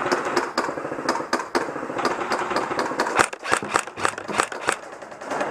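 Airsoft electric guns firing single shots in a rapid, uneven string of sharp cracks.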